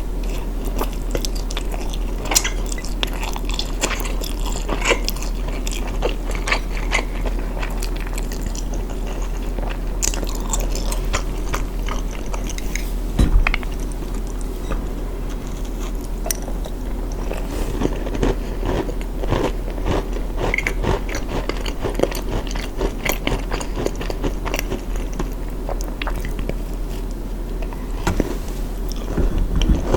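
Close-up eating sounds: repeated bites and chewing, with many short, sharp mouth clicks, over a steady low hum.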